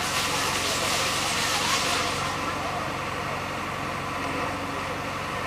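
Diesel engine of a JCB 3DX backhoe loader running steadily as the machine creeps down a ramp, a little louder and noisier in the first two seconds.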